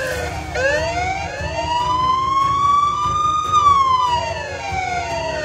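Vehicle siren wailing: one slow rise in pitch over about three seconds, then a slow fall, over a steady low hum.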